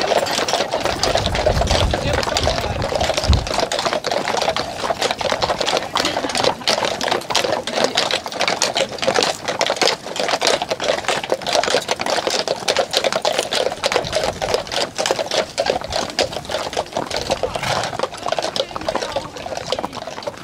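Many horses' hooves clip-clopping on an asphalt road, a dense, overlapping run of clicks. Wind buffets the microphone for the first few seconds.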